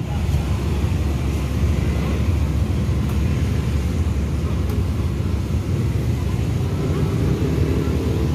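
Tracked hydraulic excavator's diesel engine running steadily, a low rumble, as the machine lifts its bucket out of a muddy drain.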